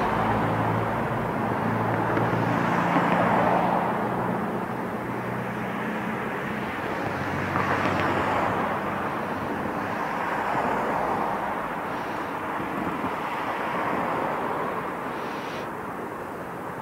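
Street traffic noise: a steady rushing of passing vehicles that swells and eases, with a low engine hum that fades about six seconds in.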